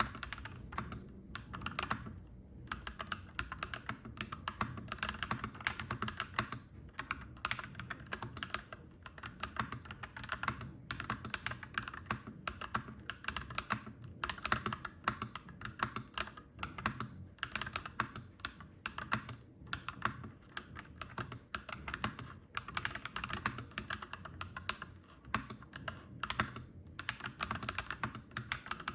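Continuous fast typing on a clacky mechanical keyboard, dense key clicks broken by a few short pauses, over a steady low rumble.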